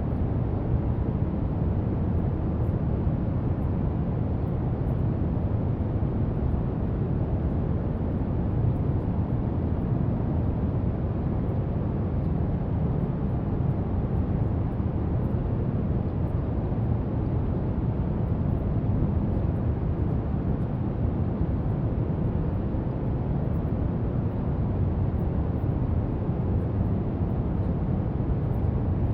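Steady brown noise: a deep, even rumbling hiss that is strongest in the bass and stays constant throughout.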